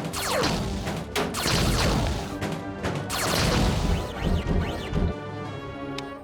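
Cartoon action score with sound effects layered over it: several sudden crashes and many sweeping, sliding pitch glides over sustained music.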